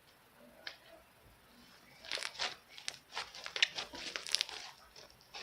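Slime mixed with EVA foam clay being kneaded and stretched by hand, giving a dense run of sharp clicks and crackles from about two seconds in, after a single click just under a second in.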